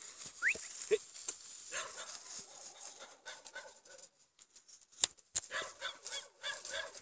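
A dog giving short yips and whines while tugging and leaping at a rope, with a few sharp clicks in between.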